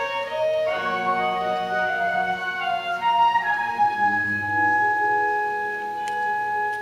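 Instrumental stage-musical accompaniment: a slow melody of sustained notes in woodwind and organ-like timbres, settling into one long held note for the second half.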